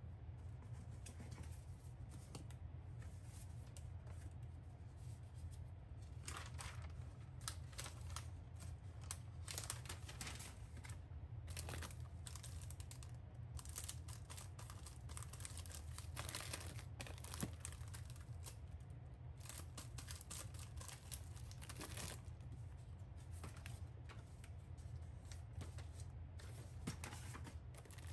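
Plastic bags of chiffon rusks crinkling and rustling in irregular bursts as they are picked up, handled and set back in a plastic basket, over a steady low hum.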